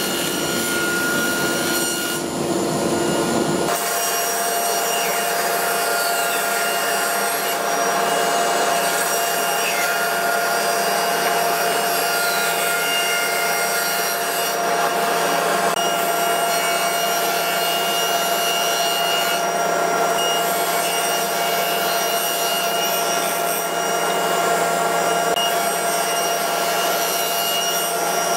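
Table saw and its overhead dust collector running: a steady whir with a constant hum. The deep rumble drops away about four seconds in.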